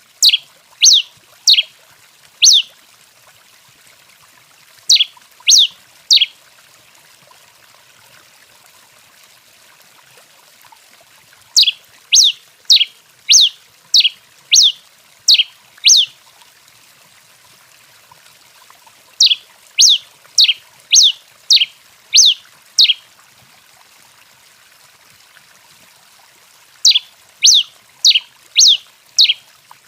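A tico-tico-rei (pileated finch) singing: phrases of three to eight sharp, high, downward-slurred notes at about two notes a second, with pauses of a few seconds between phrases.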